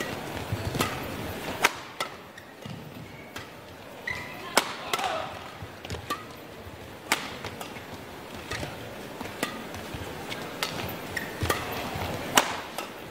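Badminton rackets striking the shuttlecock in a fast doubles rally: about a dozen sharp cracks, unevenly spaced at roughly one a second, over the murmur of an indoor hall.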